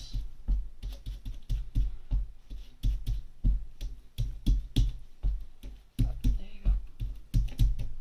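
Mini ink blending tool pounced repeatedly through a stencil onto thick watercolour paper: a quick, uneven run of soft tapping thumps, about three to four a second.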